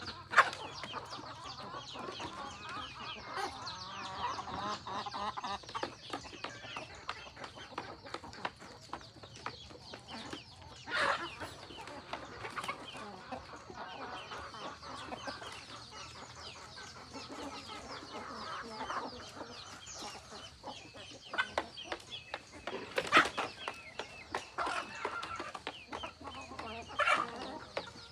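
A flock of free-range chickens clucking continuously, with a few louder calls about eleven seconds in and again near the end.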